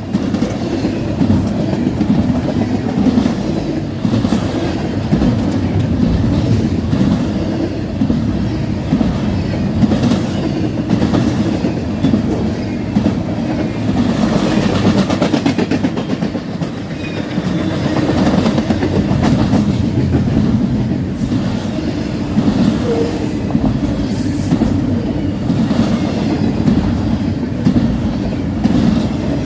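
Intermodal freight train rolling past, its wheels clattering steadily over the rail joints.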